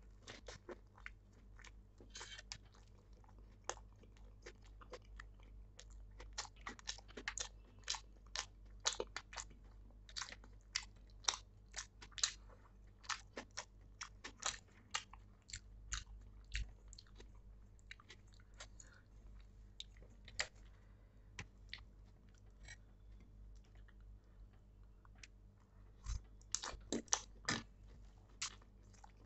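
Close-up eating sounds of a person chewing pav bhaji with raw onion: a continuous run of crisp, clicking crunches and wet mouth sounds, thickest near the end.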